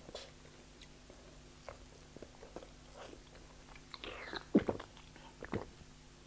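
Close-up mouth sounds of a mouthful of chicken being chewed, with small wet clicks, then drinking from a plastic bottle, with two louder gulps about four and a half and five and a half seconds in.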